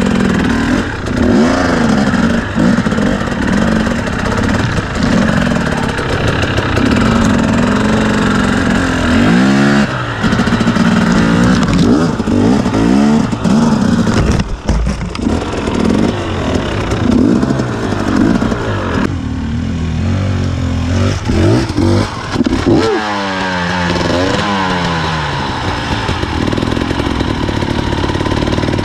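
A KTM two-stroke enduro motorcycle engine being revved in short bursts of throttle, rising and falling again and again, as the bike is worked slowly through tight, technical going. The revs drop lower for a few seconds past the middle, then pick up again with quick blips.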